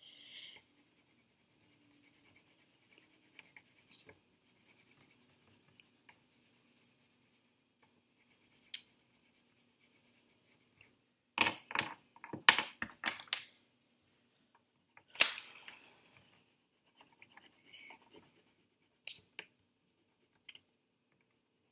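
Hand colouring of small paper cut-outs, a faint rapid scratching of the colouring tool on paper, broken by several sharp knocks and taps on the wooden tabletop. The loudest knock comes about 15 seconds in. A faint steady refrigerator hum runs underneath for the first half.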